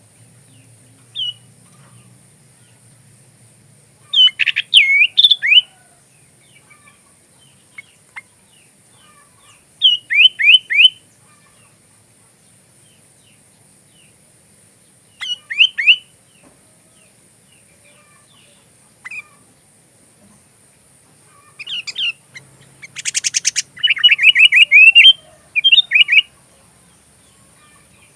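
Sooty-headed bulbul (kutilang) singing short phrases of quick, bubbly whistled notes every few seconds. Near the end comes a longer, busier phrase with a brief harsh rattle in it. A faint steady high-pitched whine runs underneath.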